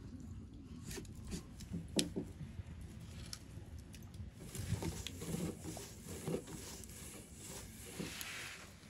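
Dough being pressed and rolled out with a long thin wooden rolling pin on a floured wooden board: soft rubbing with scattered light wooden knocks, one sharper knock about two seconds in.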